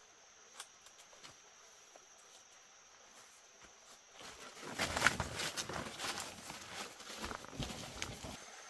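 Faint high insect drone, then from about four seconds in irregular rustling and crunching of footsteps moving through undergrowth.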